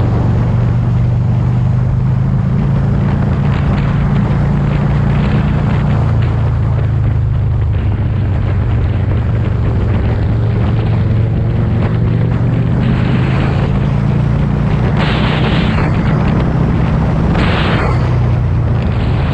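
Vehicle engine running at a steady road speed, a constant low hum under heavy wind and road noise that swells in gusts near the end.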